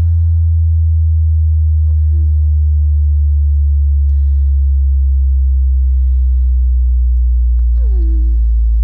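Loud low sine test tone slowly sweeping down in pitch, as in a headphone bass-sweep test. Faint short falling-pitch sounds come in about two seconds in and again near the end.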